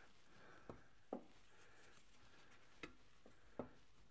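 Near silence broken by about five faint clicks and knocks as the freshly disconnected Mercedes W126 propshaft is handled at its front flex-disc joint, metal parts shifting against each other.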